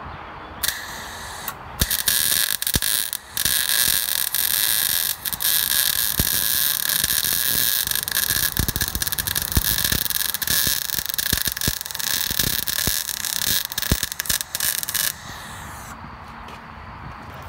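Wire-feed welder arc crackling and hissing as it lays a bead on a steel bracket: a short burst about a second in, then near-continuous welding with a couple of brief breaks, cutting off about 15 seconds in.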